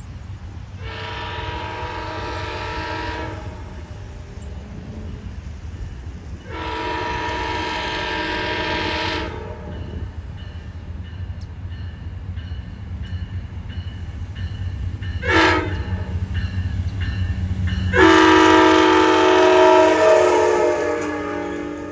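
VRE commuter train's diesel locomotive sounding its multi-chime air horn in the grade-crossing pattern, long, long, short, long, the signal for approaching a public road crossing. The low engine rumble grows as the train nears, and the last long blast is the loudest as the locomotive passes close by.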